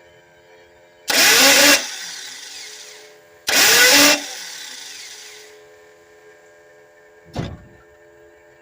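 Worn-out car starter motor, tried twice about two seconds apart: each attempt is a loud, harsh burst of under a second that winds down over the next second or so, and the engine does not start. The starter is shot. A short thump comes near the end.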